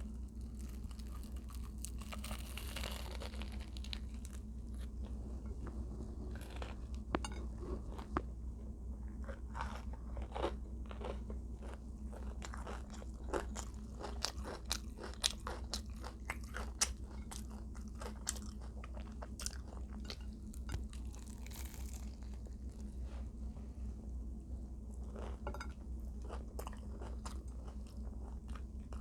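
A person eating crisp food close to the microphone: crunching bites and chewing, densest in the middle, over a steady low hum.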